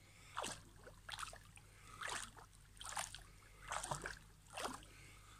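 Pool water splashing and sloshing as forearms and hands push back and forth through it in alternating elbow flexion and extension, a short swish about every second.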